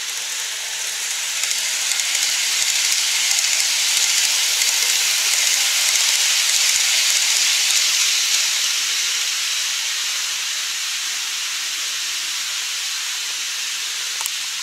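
N-scale model of a Keio 9000 series train running on elevated track: a steady hissing whir of wheels and motor that grows louder as it passes close, about two to eight seconds in, then eases off as it runs away.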